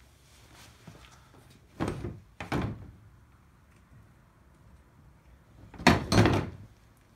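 Short clunks of hand tools and metal engine parts being handled, in two pairs about four seconds apart.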